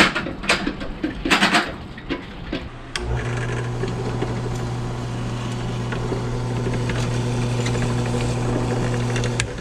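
Benchtop drill press motor starting about three seconds in and running with a steady hum while drilling out holes in a 4L60E transmission's steel valve-body spacer plate, then cutting off abruptly just before the end.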